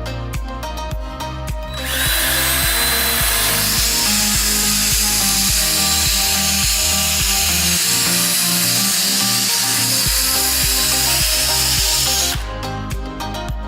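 A scissor-sharpening machine's abrasive disc grinds steel. The harsh hiss starts about two seconds in and stops near the end, over background music with a steady beat.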